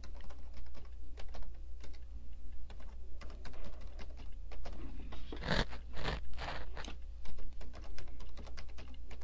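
Computer keyboard keys clicking as a password is typed in twice: a run of irregular keystrokes, with a few louder ones just past halfway.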